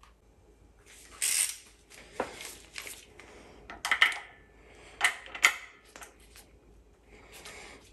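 Metal hand tools clicking and clinking against the engine's cam end as a camshaft-adjuster tool is fitted. A handful of sharp, irregular clicks, loudest around the middle, with a brief rustle about a second in.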